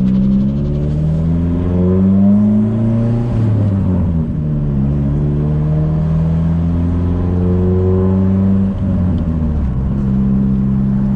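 Nissan S14's engine accelerating through the gears: the revs climb for about three seconds, drop at a shift, climb more slowly for about five seconds, then drop again and hold steady near the end.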